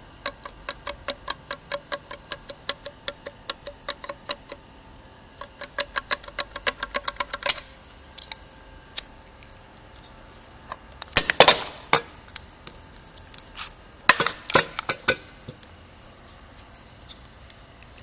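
Sharp metallic clicking as a screwdriver tip rocks the compressor wheel and shaft of a failed Garrett GT2256V turbocharger, checking it for play: about three or four clicks a second, quickening before they stop about halfway through. This is followed by two louder bursts of metal clattering as the turbo body is handled.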